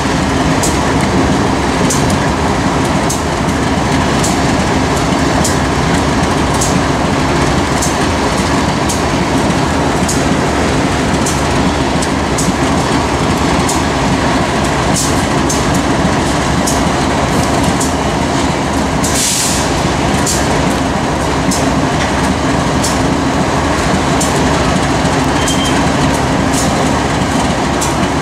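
Freight train of covered hopper cars rolling past, steel wheels clicking rhythmically over the rail joints about one and a half times a second over a steady rumble and hum. A short hiss about two-thirds of the way through.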